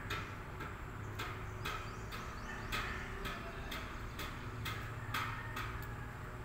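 Steady, regular ticking, about two sharp clicks a second, over a low hum.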